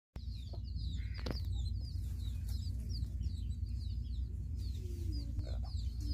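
Domestic chickens calling: chicks give many short, high, falling peeps over and over, and a few lower hen clucks come in the second half, all over a steady low rumble.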